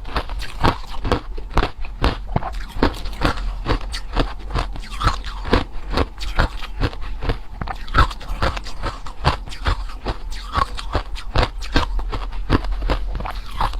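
A person biting and chewing hard ice close to the microphone: a steady run of sharp, crisp crunches, several a second.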